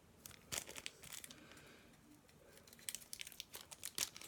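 Small plastic accessory bag of zip ties and screws being opened and handled, crinkling in short bursts with a quieter pause in the middle.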